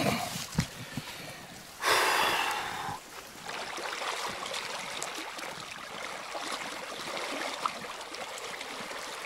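River water running over a riffle: a steady rush, with a few short knocks in the first second and a louder burst of noise lasting about a second, about two seconds in.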